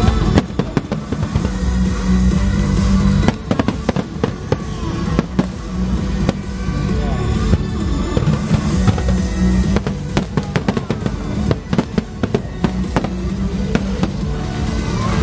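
Fireworks display: aerial shells bursting and crackling in quick succession, with music playing underneath.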